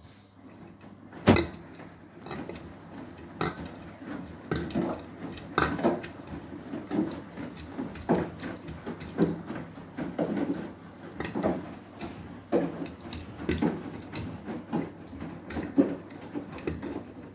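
Beko WTK104121W washing machine drum turning during its final rinse, the wet laundry thudding and sloshing as it tumbles, roughly once a second over a steady motor hum. The loudest thud comes about a second in.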